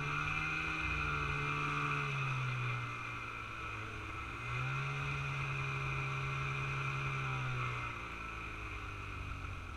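Snowmobile engine and track running, heard from the rider's seat: the engine note eases off about two and a half seconds in, picks back up about two seconds later, and eases off again near the end.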